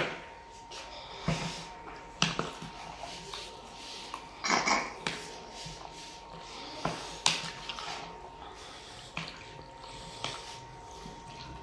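White plastic spoon stirring and folding chopped potato, onion and tomato into whipped yogurt in a plastic bowl: wet mixing and scraping with irregular knocks of the spoon on the bowl, the sharpest right at the start. A faint steady high hum sits underneath.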